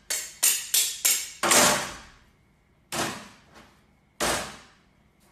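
A series of heavy thuds from a fist pounding meat on a cutting board on a steel counter. Five come in quick succession, the fifth the loudest, then two more single blows a second or so apart, each dying away briefly.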